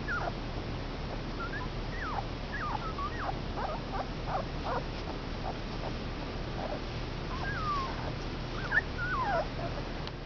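Two-week-old Komondor puppies whimpering: short, high cries that drop in pitch, in a quick run over the first few seconds and another cluster near the end.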